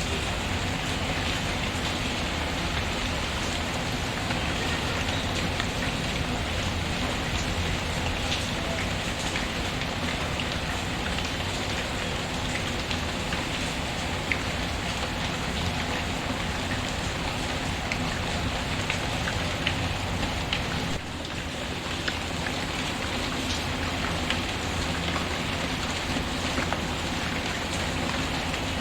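Steady rain falling on a surface, mixed with the crackle of a wood fire in a fireplace, heard as scattered faint clicks and pops over the rain. The level dips briefly about three-quarters of the way through.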